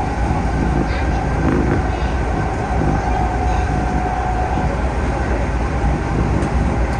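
Keihan 3000 series electric train running at speed: a steady rumble of wheels on rail with a steady whine from its Toyo IGBT-VVVF traction motors.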